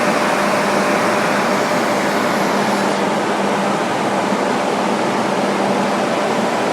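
Large smoke-extraction fans running, blowing air to form an artificial tornado: a steady rush of air with a low hum under it.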